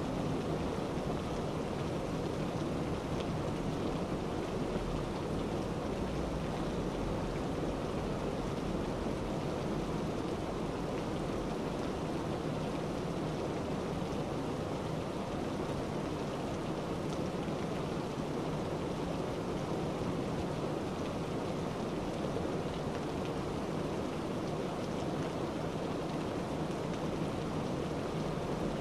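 Steady, even rushing noise with a low rumble beneath it, unchanging throughout.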